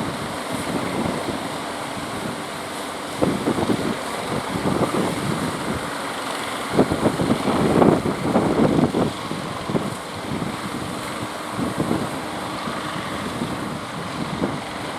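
Strong wind buffeting the microphone, with heavier gusts about three seconds in and again around seven to nine seconds in.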